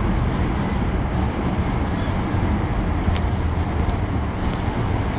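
Steady low rumble of city traffic heard from high above, with a single sharp click about three seconds in.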